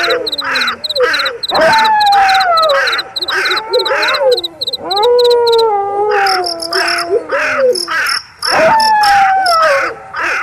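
Wolf howling three times, each a long call that rises and then slowly falls in pitch, over crickets chirping in a steady rhythm of about three pulses a second.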